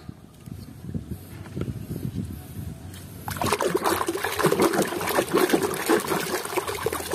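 A hand sloshing and splashing in a plastic tub of murky, muddy water, washing toys. It is quieter at first, then gets louder and busier about three seconds in.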